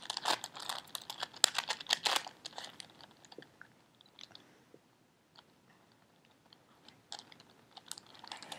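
Plastic clicking and clacking of a 4x4x4 Rubik's cube being turned. There is a quick flurry of turns in the first couple of seconds, scattered single clicks after that, a pause, and more turning near the end.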